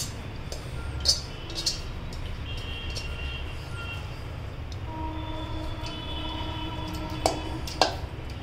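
Water poured from a steel bowl into an aluminium pressure cooker of dal, with a few sharp metal clinks of the bowl against the cooker, twice early and twice near the end, over a steady low rumble.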